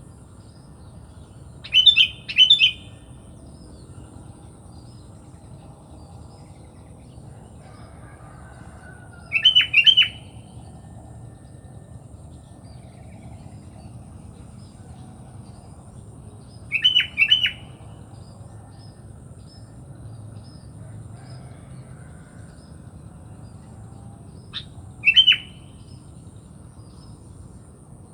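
Sooty-headed bulbul (kutilang) calling in four short bouts of two or three quick chirps each, spaced roughly seven or eight seconds apart.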